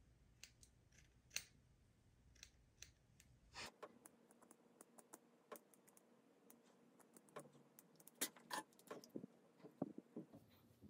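Small grooming scissors trimming mustache hairs: faint, irregular snips, sparse at first and coming more often from about four seconds in.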